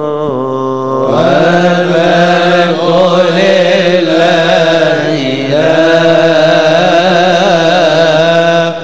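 A male cantor chanting a Coptic liturgical hymn solo, holding long, wavering notes. The voice grows louder and fuller about a second in.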